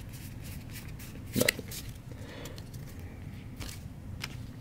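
Trading cards handled and flipped through by hand: faint scrapes and a few sharp little clicks, with one louder short sound about a second and a half in.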